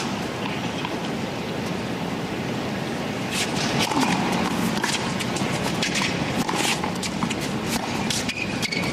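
A tennis rally on a hard court: sharp racquet strikes on the ball starting about three seconds in and coming roughly once a second, with shoe squeaks near the end, over a steady crowd murmur.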